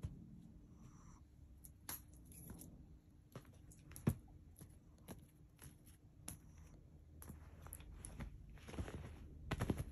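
Soft scattered taps and fabric rustles of a cat swiping and pouncing at a string toy on a bedspread, with one sharper knock about four seconds in and a flurry of rustling near the end.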